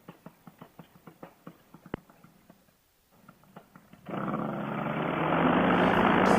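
Faint light ticks, a few a second, then about four seconds in a paramotor engine starts suddenly and runs, growing louder.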